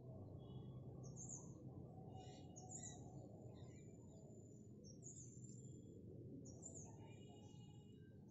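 Faint birds chirping: clusters of short, high calls and brief trills, over a steady low background hum.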